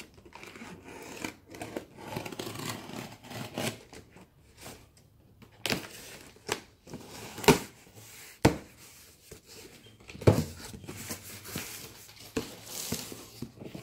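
Packing tape being peeled off a cardboard box, then several sharp knocks and rustles of cardboard as the box flaps are opened.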